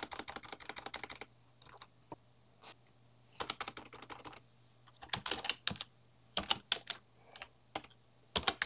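Typing on a computer keyboard: several short runs of rapid key clicks with pauses between them.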